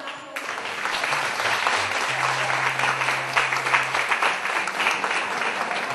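Audience applauding, breaking out suddenly about half a second in and holding steady, with a faint low steady tone under it for a couple of seconds in the middle.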